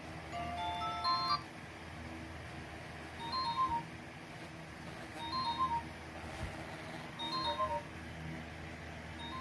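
Nokia 215 mobile phone's speaker playing a ringtone. A quick rising run of electronic notes comes in the first second and a half, then a short burst of high chirping notes repeats about every two seconds.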